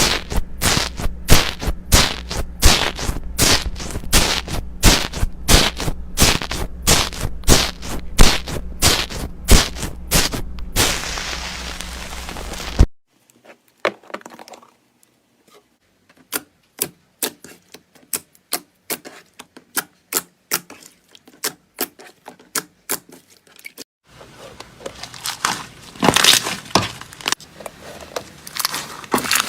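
Slime being pressed and squeezed, giving rapid crackling and popping clicks. The sound cuts off suddenly about 13 seconds in, then resumes with sparse clicks, and turns to denser crackling near the end.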